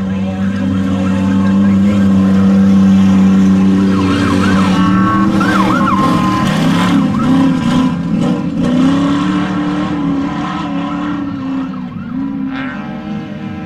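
Off-road desert race vehicle's engine running hard: it holds a steady pitch for the first few seconds, then its revs rise and fall. Short high squeals come in the middle.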